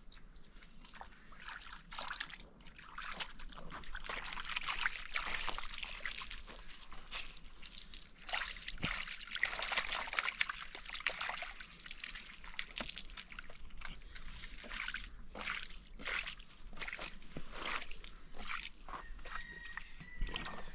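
Water sloshing and splashing in irregular bursts as clothes are washed by hand.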